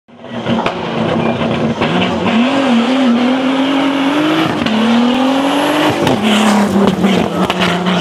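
Turbocharged 2.8 VR6 engine of a VW Golf IV hillclimb car revving hard. Its pitch climbs and drops sharply twice, about halfway through and again about three-quarters of the way through, as it pulls through the gears, then settles to a steady drone.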